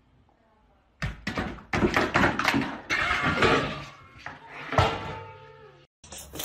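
Cat cries mixed with a rapid run of thumps and knocks, starting about a second in and cutting off suddenly near the end.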